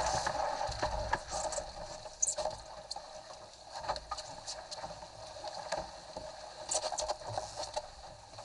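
Water rushing and splashing along the hull of a Cherub sailing skiff moving fast through choppy water, heard from on deck, with scattered sharp knocks and slaps from the hull and fittings, a cluster of them about seven seconds in.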